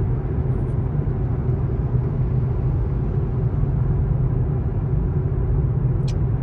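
Steady low road and tyre rumble inside the cabin of a 2024 Tesla Model 3, an electric car with no engine note, rolling along a freeway in traffic. A single short click comes near the end.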